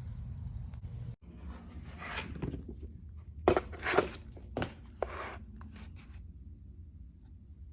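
Several short rustling and crinkling handling noises, about five in quick succession near the middle, then fading to a low background.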